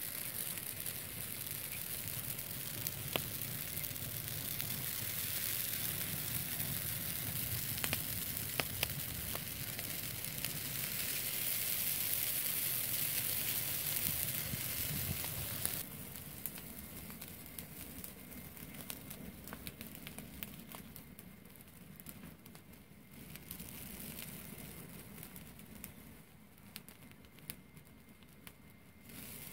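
A heap of dry grass burning fiercely, crackling and hissing with many sharp pops. About halfway through it drops suddenly to a quieter crackle.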